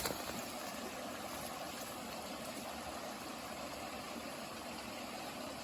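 Steady rushing of a small creek flowing over rocks, an even hiss at a constant level.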